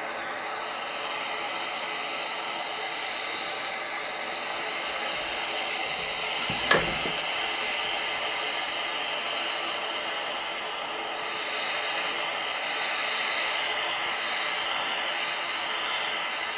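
Small butane pencil torch burning with a steady hiss as its flame heats a part in a lathe chuck to free it, with one sharp knock about seven seconds in.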